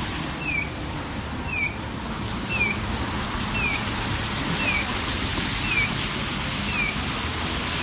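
A short high chirp that slides downward, repeating evenly about once a second, over the steady hiss of a wet street with passing traffic.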